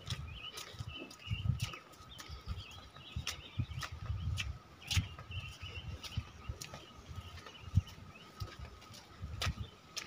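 Footsteps of people walking on a concrete path, heard as irregular soft thumps about twice a second with scattered scuffs and clicks, while birds chirp faintly in the background over a faint steady high tone.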